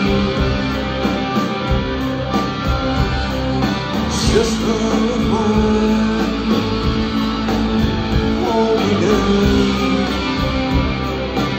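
Live rock band playing an instrumental passage between sung lines, held pitched notes over a steady beat, heard loud from the audience.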